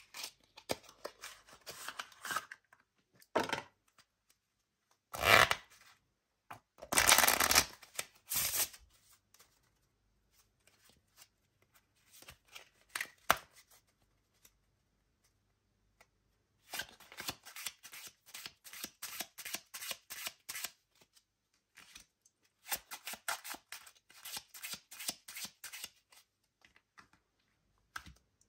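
A deck of playing cards being handled on a cloth mat. First comes soft rustling and clicking as the cards come out of their cardboard tuck box. Then three loud shuffles follow, and after them two long runs of rapid soft clicks as cards are dealt off one by one into piles.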